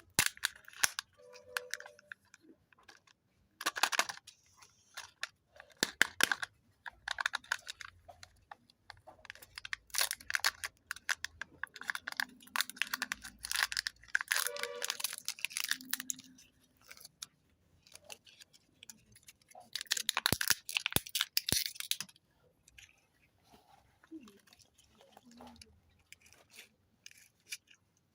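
Plastic Kinder Joy egg wrappers and capsules being torn, crinkled and snapped open by hand: dense crackling and clicking in bursts of a few seconds. It thins to a few faint clicks over the last several seconds.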